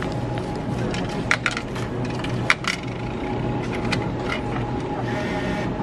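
Coins dropping into the change cup of a self-checkout machine: several sharp clinks, the strongest about a second and a half and two and a half seconds in, over a steady low hum.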